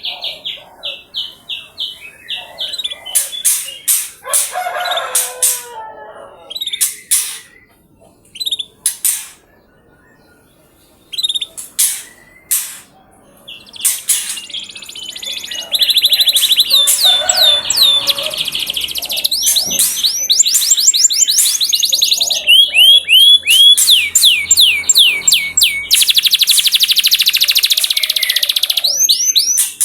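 Domestic canary singing: scattered high chirps and short trills at first, then from about 16 s on a loud, unbroken run of rapid trills and sweeping phrases. It is a canary lure song, played to coax other canaries into singing.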